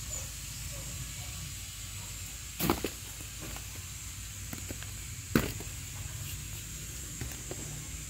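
Steady high hiss of the surroundings, broken by two sharp knocks about two and a half seconds apart and a few fainter ticks.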